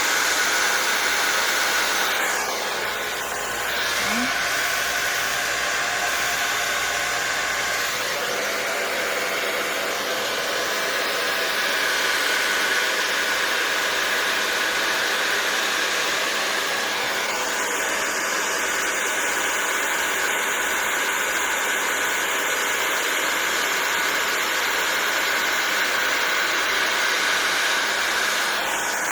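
Hair dryer with a nozzle attachment running steadily, blowing acrylic paint outward across a small wood round. Its whoosh dips and shifts in tone about three seconds in and changes again a little past halfway.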